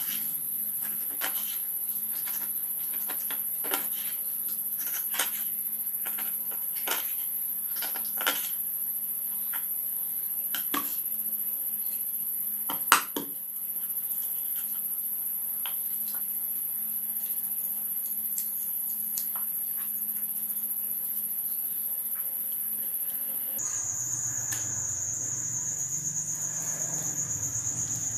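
Kitchen knife chopping through a murrel (snakehead fish) on a wooden board, a knock every second or so with one louder chop midway. Crickets chirp steadily at a high pitch behind it, and a lower-pitched cricket takes over near the end.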